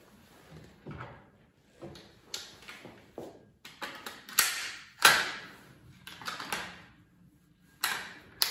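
Metal clicks and clunks of a hunting barrel being fitted and locked into a rifle action: a series of separate handling knocks, the loudest about five seconds in and two more sharp ones near the end.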